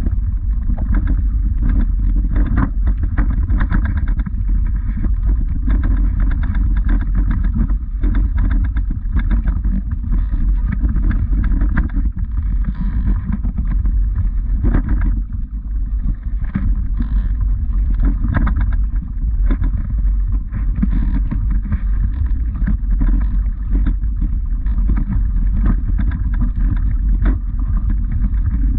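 Wind buffeting the camera microphone as a steady low rumble, with the crunch of footsteps on a gravel and earth path every second or so.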